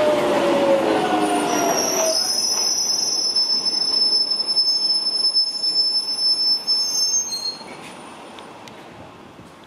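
A train on the tracks, its motor whine falling in pitch for the first two seconds, then a high-pitched wheel squeal that rings steadily for about six seconds before cutting off; the rail noise then fades away.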